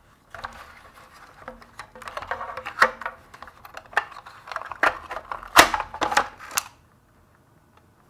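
Irregular plastic clicks, knocks and scraping as the main brush, motor and gearbox unit is wiggled out of the ILIFE V7s Plus robot vacuum's plastic chassis, stopping about seven seconds in.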